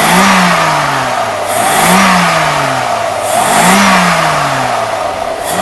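Mercedes-Benz W126 300SEL's warm straight-six engine blipped three times, each rev rising quickly and sinking back toward idle. It revs smoothly, its fuel distributor and six injectors newly replaced after years of sitting, and the engine is judged in good condition.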